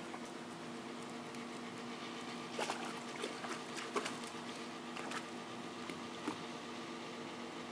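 Scattered light splashes and patters of water, a quick few together between two and three seconds in, then single ones spread out, the sharpest about four seconds in, over a steady hum.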